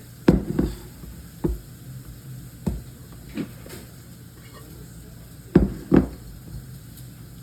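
Irregular knocks and thumps as sourdough dough is mixed in a bowl, the two loudest close together about five and a half seconds in.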